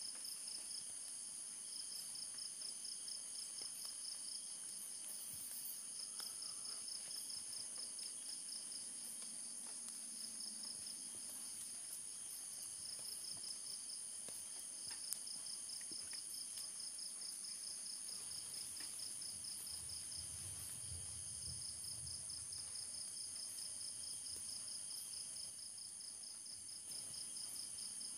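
Steady chorus of forest insects: several high, unbroken trilling tones layered together, one of them pulsing rapidly.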